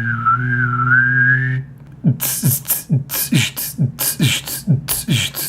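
A man making vocal sound effects. First he holds a wavering whistle-like tone over a low hum. After a short pause he beatboxes a steady beat of falling bass-drum kicks and hissing snare sounds, about three a second.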